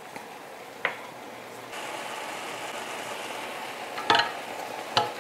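Spinach and leeks in a stainless steel frying pan starting to sizzle again from about two seconds in, a steady hiss as the pan regains its heat after the cold spinach cooled it. There is a short click about a second in and two brief knocks near the end.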